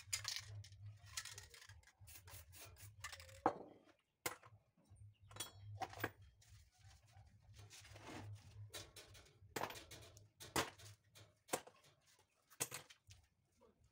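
Paper rustling and being rubbed and pressed by hand on a spray-painted sheet, with a few short hisses of a spray-paint can, over a faint steady low hum.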